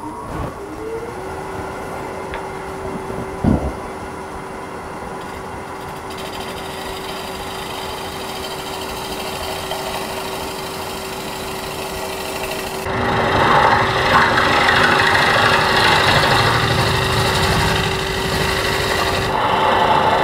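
Jet wood lathe running with a steady motor hum, with a single knock about three and a half seconds in. About thirteen seconds in, a gouge starts cutting into the spinning wooden bowl, and the louder, rough noise of the tool hollowing the inside joins the hum.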